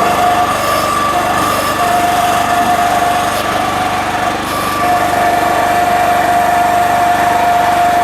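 Small gasoline engine of a towable backhoe running steadily, with a high steady whine over it that breaks off briefly a few times.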